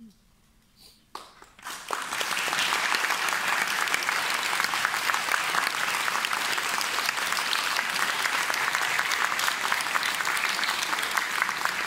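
Audience applauding: a few scattered claps about a second in, filling out within a second into steady, dense applause.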